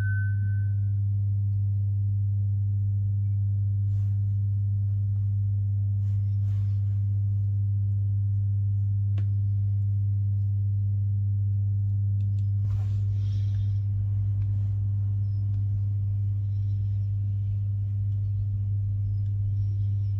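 A steady low hum at one pitch, with a few faint clicks and a brief rustle of small tools and parts being handled.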